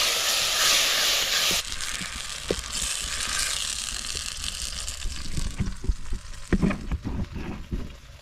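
Onion-and-tomato base frying in a pot as it is stirred. A loud sizzle for the first second and a half, then quieter sizzling, with a spoon knocking and scraping against the pot in the second half.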